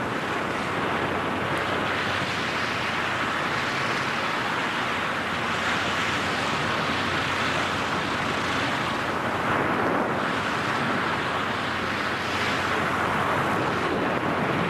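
Steady rush of freefall wind buffeting the microphone of a skydiver's camera.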